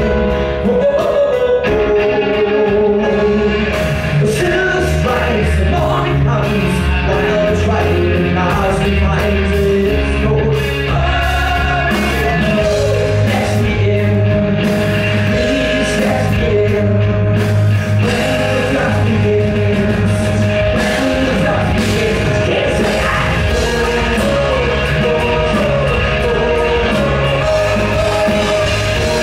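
Live rock band playing with keyboards, electric guitar, bass and drums, and a lead vocal sung over the music.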